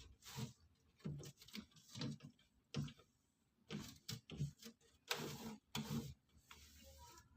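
Irregular light knocks, clicks and brief scrapes of objects being handled.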